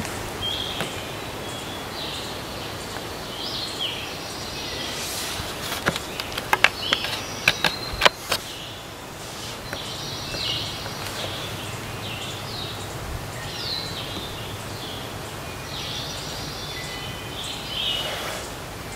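Forest songbirds singing short, repeated high chirping phrases over a steady outdoor background. A quick run of sharp clicks or knocks about six to eight seconds in is the loudest sound.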